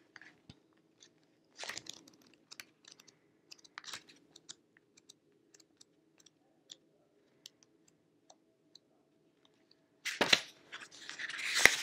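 Tarot cards and paper handled on a tabletop: scattered soft clicks and brief rustles over a faint low hum, then louder rustling of paper pages for about two seconds near the end.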